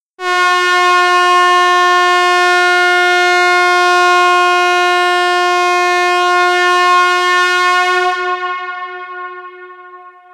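Toy party horn (carnival horn) blown in one long, steady, buzzy note that fades away over the last couple of seconds.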